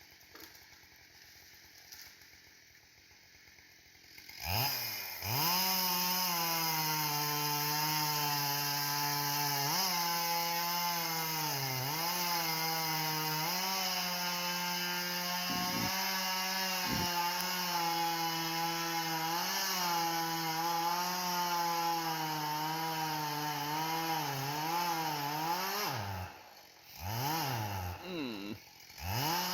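Chainsaw engine, quiet for the first few seconds, then revved to full throttle about four seconds in and held there while cutting into a tree, its pitch sagging briefly now and then as the chain bogs under load. Near the end it drops back toward idle, is blipped twice, and revs up again.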